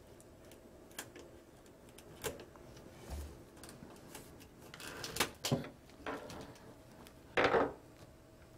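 Hands working a hose off a livewell pump's hose nipple: faint scattered clicks, scrapes and rustles, with a few louder knocks and scrapes around the middle and once more near the end.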